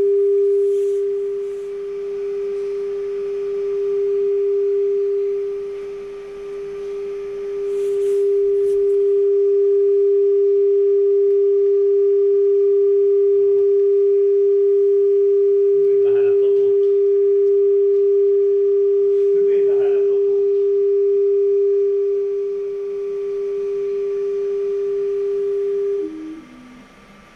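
A steady pure test tone a little under 400 Hz, played through a car audio system. It holds for about 26 seconds, steps down in pitch twice, then cuts off.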